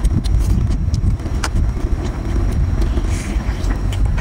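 Steady low rumble of wind buffeting the microphone, with scattered sharp clicks and crackles of lobster shell being pulled apart and chewed.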